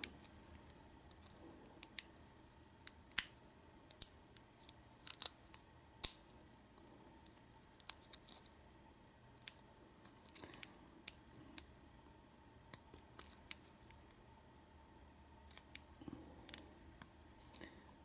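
Irregular, sharp metal clicks and ticks of a hook pick working the pins inside an American Lock 1100 padlock held under a tension wrench; the clicks are pins setting as the pick lifts them.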